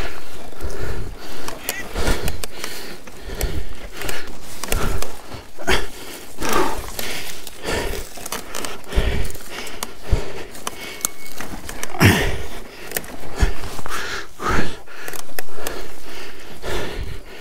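Heavy breathing close to the microphone in irregular bursts, with rustling and thumps against it.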